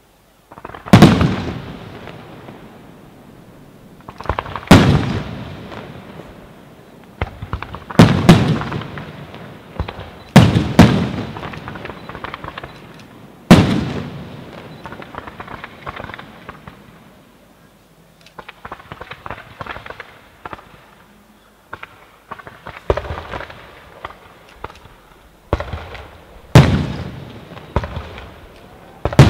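Aerial firework shells bursting in a display: a loud boom every few seconds, each fading off with a rumbling echo, and a spell of quieter crackling pops about two-thirds of the way through.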